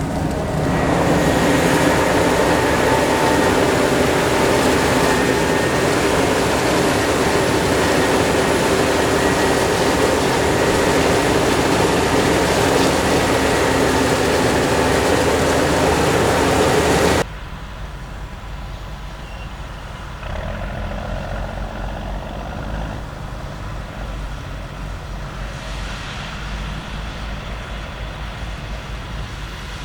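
Heavy farm machinery engines running steadily and loudly, with a sudden cut about 17 s in to a quieter, deeper engine sound.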